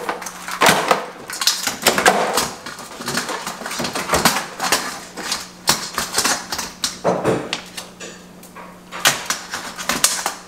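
Live blue crabs being handled and dropped into an aluminium can cooker pot: a run of irregular clicks, knocks and clatters of shells against the metal and against each other.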